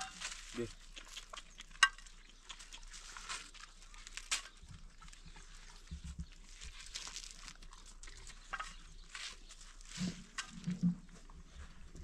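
Hands tearing and crumbling dry flatbread, with scattered crackles and sharp clicks. Two sharp clicks stand out, about two seconds in and about four seconds in. Short low voice sounds come near the end.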